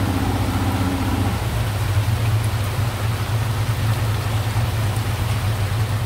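Boat's outboard motor running at a steady speed, with heavy rain hissing on the water around it.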